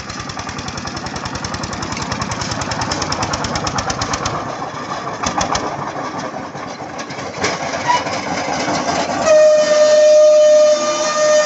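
Mini tractor's engine chugging in rapid, even beats as it hauls a loaded sand trailer, becoming rougher after a few seconds. From about nine seconds a loud, steady horn-like tone holds to the end.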